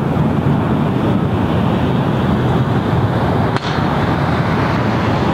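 Wind buffeting the microphone: a loud, steady rush of noise, heaviest in the low end, with a brief drop about three and a half seconds in.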